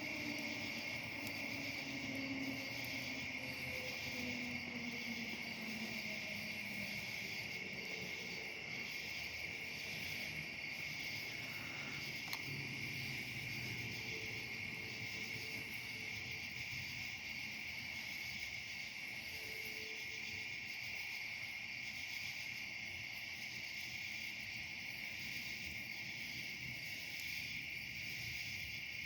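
Steady, unbroken chorus of night insects chirring in a high band. A faint low hum falls in pitch and fades away during the first few seconds.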